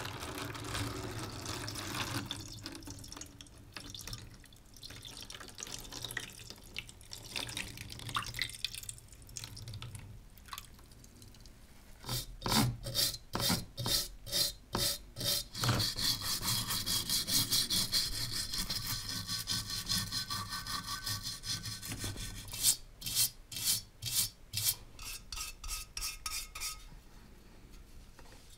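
A stiff-bristled brush scrubbing a rusty brass lamp body that sits in liquid in a plastic tray, in back-and-forth strokes at about two a second, with a steadier stretch of scrubbing in the middle. Near the start, liquid is poured from a bottle into the tray.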